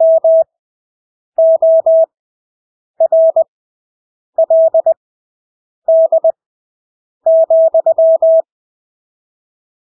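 Morse code (CW) sent as a single steady beep tone at 20 words per minute with wide Farnsworth spacing: six characters of quick dots and dashes, each followed by about a second of silence, the last one longest.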